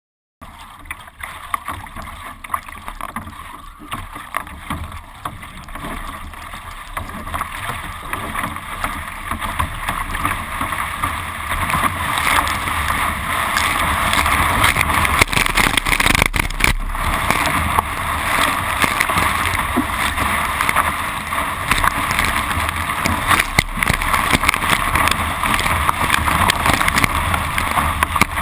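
Water splashing and rushing along the bow of a Carbonology Atom surf ski as it is paddled through chop. It cuts in just after the start and grows steadily louder through the first half.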